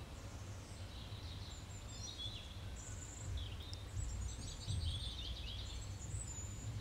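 Small birds chirping in short calls and quick trills, over a low steady hum.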